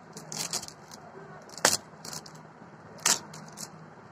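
Handling noise from a small plastic pop socket and its packaging: a brief rustle of light clicks near the start, then two sharp loud clicks about a second and a half apart.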